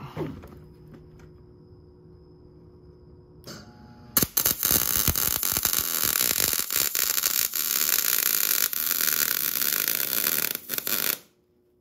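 MIG welder arc crackling and sizzling steadily on a steel motorcycle frame, welding a motor mount. The arc strikes about four seconds in, runs for about seven seconds and cuts off suddenly near the end.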